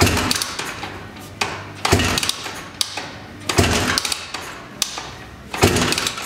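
Rotax hybrid engine in an ATC250R frame being kick-started with the choke on: four kicks, about one every two seconds, each a sudden clatter as the engine spins over and then fades. It does not settle into running.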